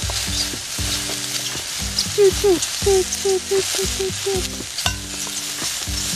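Shimeji mushrooms squeaking ("kyu-kyu") as they are stir-fried with tongs in a wok of hot chicken fat, over a steady sizzle. A quick run of about eight short, mouse-like squeaks comes in the middle, with the tongs clicking against the pan.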